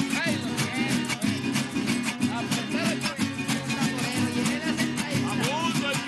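Acoustic string-band folk music: steady, rhythmic guitar strumming under a melody line whose notes bend up and down.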